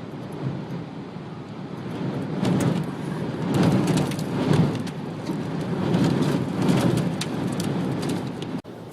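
Strong, gusty wind from a tornado buffeting the microphone, rising and easing in surges, with many sharp crackles and rattles through the middle; it cuts off abruptly near the end.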